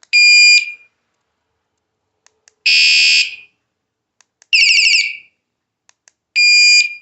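Small wireless motorcycle vibration alarm sounding in four short, loud siren blasts under a second each, in different tone patterns: a steady shrill beep, a denser shrill tone, a fast warbling chirp, then the steady beep again. Faint clicks come before several of the blasts.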